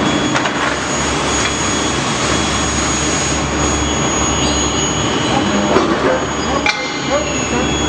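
Induction forging furnace running in a loud steady roar with a thin, steady high-pitched whine over it. A single sharp knock comes near the end.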